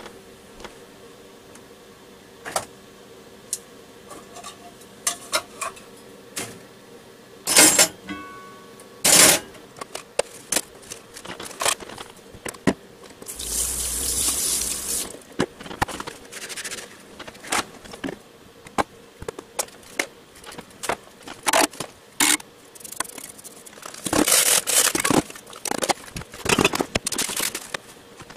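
Dishes being washed at a kitchen sink: the tap runs in short bursts, with repeated clinks and knocks of bowls and pans against the sink.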